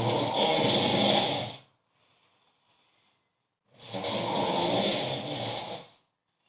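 A man snoring very loudly: two long snores, each about two seconds, with a faint breath in the gap between them.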